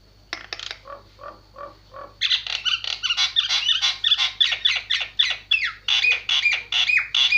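Jalak penyu starling calling: a few separate notes, then from about two seconds in a fast, loud run of harsh repeated calls, about four a second, many sliding down in pitch.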